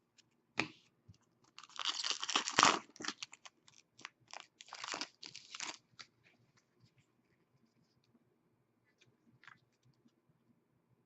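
Wrapper of a pack of hockey trading cards being torn open and crinkled in a few rustling bursts, the loudest about two seconds in, dying down about six seconds in to light clicks of cards being handled.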